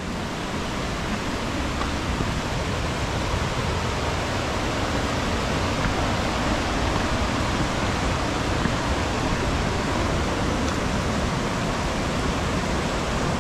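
Steady rush of a mountain river pouring over rapids and small cascades.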